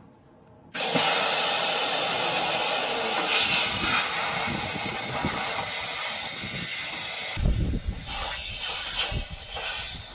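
Compressed air hissing out of a truck's suspension air line as it is cut between the leveling valve and the air spring, starting suddenly about a second in and holding loud and steady. Near the end the hiss weakens a little and a low rumbling joins it.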